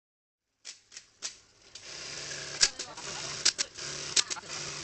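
A Juki LK-1850 industrial bartacking sewing machine starts with a few clicks, then runs steadily with loud, sharp mechanical clacks every second or so.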